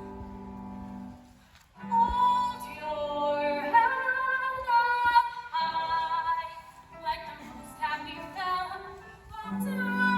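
Female voice singing a show tune with musical accompaniment. A held accompaniment chord plays alone for about the first second and a half, then the singing comes in.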